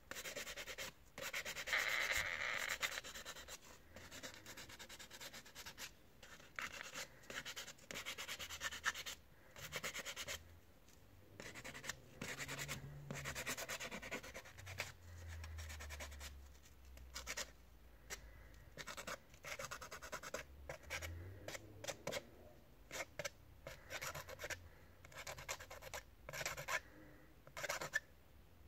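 Sandpaper rubbing against the plastic housing of a Wahl Sterling 2 Plus hair trimmer, sanded by hand in irregular strokes. The strokes are longer at first and become short and choppy in the second half.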